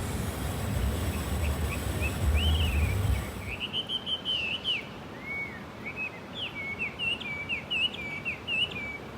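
A songbird singing a run of quick, warbling phrases, with fainter high chirps from other birds. A low rumble underneath stops about three seconds in.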